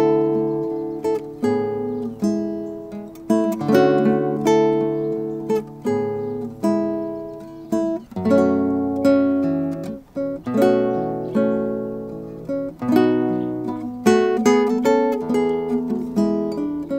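Solo nylon-string classical guitar played fingerstyle: a gentle melody over plucked bass notes and chords, each note ringing and fading before the next.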